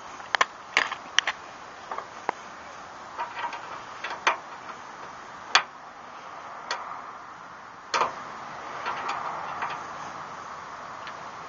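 Irregular sharp metallic clicks and ticks from small hardware, snap rings and a washer, being picked at and pulled off a Chevy S-10 tailgate hinge bracket by hand.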